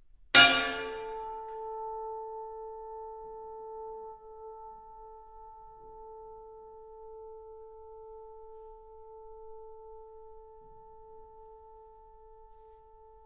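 A single struck, bell-like metal percussion note from an orchestra: a bright attack about half a second in, then a few clear tones that ring on and slowly fade.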